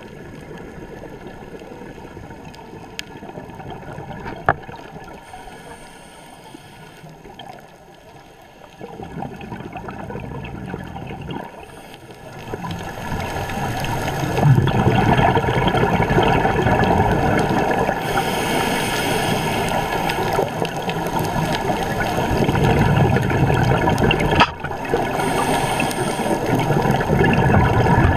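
Underwater water noise heard through a camera housing: rushing and gurgling, with bubbling from scuba divers' exhaled air. It grows louder about halfway through, with two stronger hissing bubble bursts near the end.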